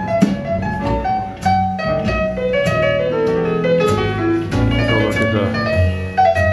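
Recorded piano music playing over a hi-fi system's loudspeakers, with a melody and bass notes.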